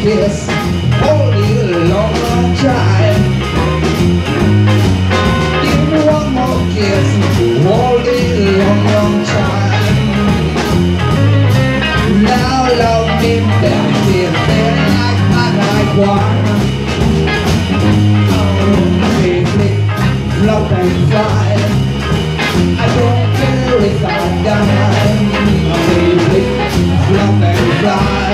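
Live band playing a blues jam, with a stepping bass line under a steady drumbeat and a lead melody line on top.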